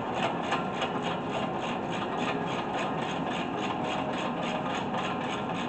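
Hand ratchet clicking steadily, about five clicks a second, as a brake caliper bolt is wound out by hand.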